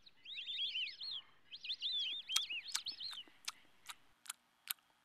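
A small songbird sings two quick phrases of rising-and-falling chirps over the first three seconds. From about two seconds in, a coastal brown bear laps water, a steady series of sharp clicks about two or three a second.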